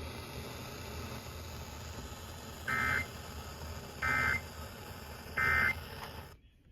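Emergency Alert System end-of-message data bursts over the FM broadcast: three short buzzy bursts about a second apart, over steady radio hiss, marking the end of the severe thunderstorm warning. The sound cuts off suddenly near the end.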